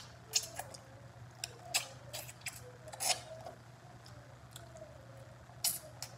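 Close-up mouth sounds of eating braised oxtail by hand: scattered wet lip smacks and chewing clicks as meat is sucked and gnawed off the bone, about half a dozen sharp smacks over a few seconds.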